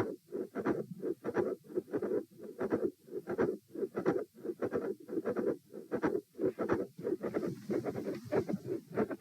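Heart sounds heard through a stethoscope at Erb's point: a fast, regular lub-dub heartbeat, which the uploader labels a midsystolic murmur with a click and a fixed split second heart sound.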